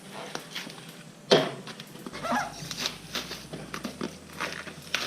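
Plastic shipping bag being worked open with a knife: rustling and crinkling with scattered clicks, and a sharp knock about a second and a half in.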